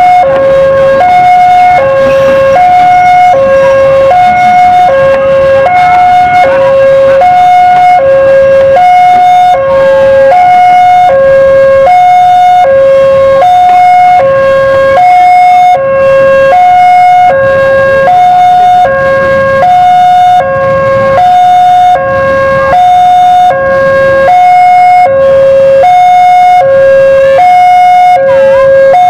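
Railway level-crossing warning alarm sounding a steady two-tone hi-lo signal, a high and a low tone alternating about every three-quarters of a second, which signals that a train is passing and the barrier is down. A faint low rumble sits underneath.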